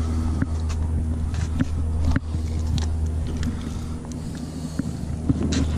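A steady low mechanical hum, with faint scrapes and taps of a fillet knife working along a tripletail's fillet.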